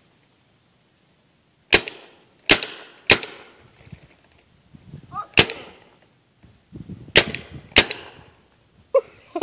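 Paintball gun firing six sharp shots at uneven intervals, three in quick succession, then single shots a couple of seconds apart.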